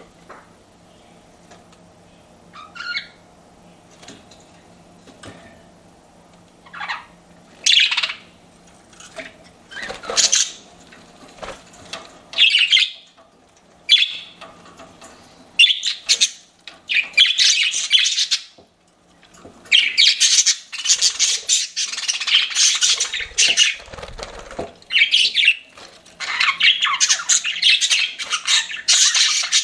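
Pet budgerigars calling: scattered short chirps and squawks at first, building about halfway into a near-continuous warbling chatter.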